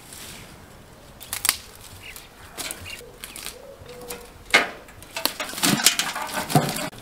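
Dry brushwood twigs rustling, cracking and snapping as they are broken and packed by hand: scattered crackles, a sharp snap about halfway through, and a dense run of crackling near the end.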